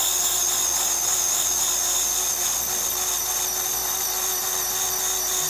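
Powered surgical reamer running steadily as it cuts around the patient's femoral head during hip resurfacing, a continuous high whine that wavers slightly under load in hard bone.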